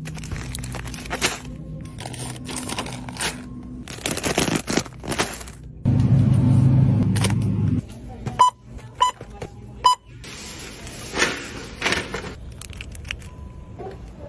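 Shopping items being handled and rustled, then a Magellan checkout scanner giving three short beeps in quick succession as items are scanned, over background music.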